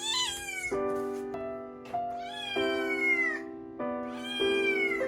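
Munchkin cat meowing three times: high calls that fall in pitch, the middle one the longest. Background music with held notes plays underneath.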